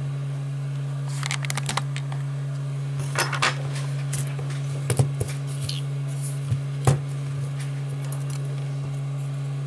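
Scattered small clicks and taps of an iPhone 5s logic board and its metal housing being handled and set down on a workbench; the sharpest tap comes about 7 seconds in. A steady low hum runs underneath.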